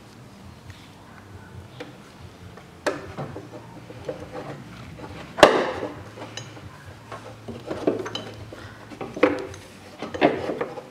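Scattered metal clanks and knocks as an engine mount and its metal bracket are set into place on the engine and its bolts are started by hand. The loudest clank comes about halfway through, with smaller knocks and clinks after it.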